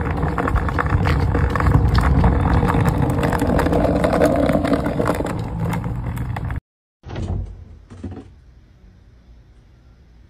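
Skateboard wheels rolling over rough asphalt: a steady rumble with many small clicks, which cuts off suddenly about six and a half seconds in. After a brief silence come two short knocks.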